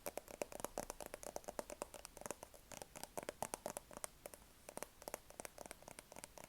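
Rapid, irregular soft clicks and taps close to the microphone, several a second, in ASMR style.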